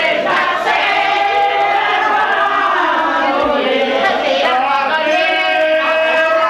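A small group of men and women singing together, voices overlapping on held notes.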